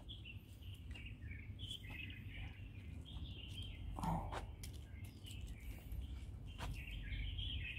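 Birds chirping and singing in short, quick phrases, over a steady low background rumble. A brief louder sound comes about four seconds in.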